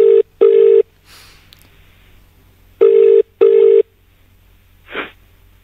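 Telephone ringing tone heard down the line as an outgoing call rings: two double rings ("brr-brr") about three seconds apart, a steady low tone cut off in the treble like a phone line. A brief faint noise follows about five seconds in.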